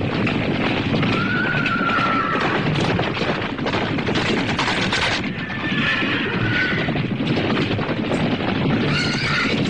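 Horses galloping in a group, with a continuous clatter of hooves and neighing about a second in, around six seconds in and again near the end.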